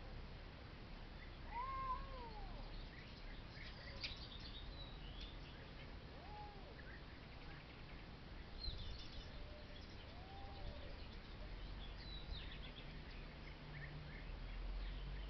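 A domestic cat meowing out of sight: one clear meow about two seconds in, then two fainter ones. Birds chirp in the background.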